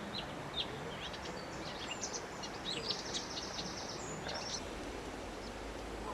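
Songbirds chirping and twittering over a steady outdoor background hiss, with a busy run of quick high notes and trills in the middle.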